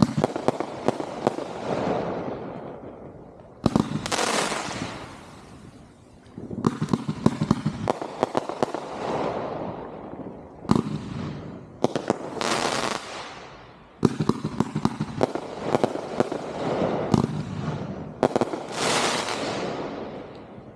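Consumer (1.4G) fireworks going off in volley after volley: rapid strings of sharp cracks and pops, each trailing off over a second or two before the next volley starts.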